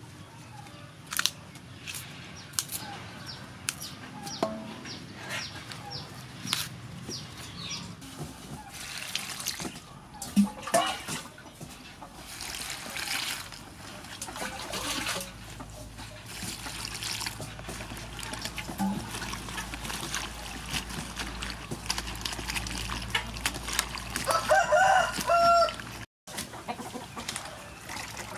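Hands handling cut water hyacinth flowers and stems in a metal bowl and colander, with scattered light rustles and knocks. Chickens cluck in the background, and a rooster crows near the end.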